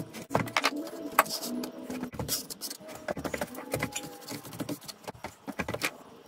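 Hand brush sweeping loose foundry green sand off a board into a dustpan: a run of quick, irregular brushing scrapes and light taps.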